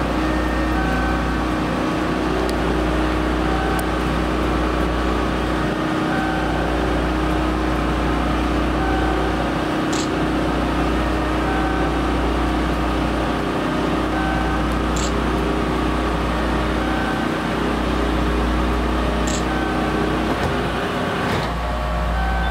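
The ceiling-stowed bench seat of a Keihan 5000 series car being lowered by its lift mechanism: a steady mechanical hum over the car's low background drone, which stops about a second before the end as the seat reaches its lowered position. A short beep repeats about once a second throughout.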